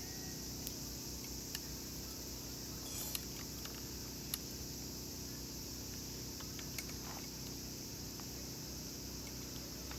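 Campfire crackling: a few sharp, irregular pops from burning wood over a steady high hiss.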